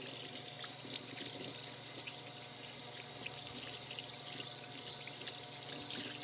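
Electric hand mixer running steadily, its beaters churning a bowl of hot, partly melted coconut oil, shea butter and wax with a watery swish.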